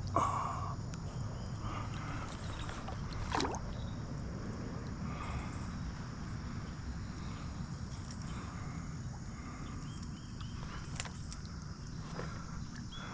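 Creek water flowing and sloshing around the wading angler, with a few brief sharp splashes or knocks, the loudest about three seconds in.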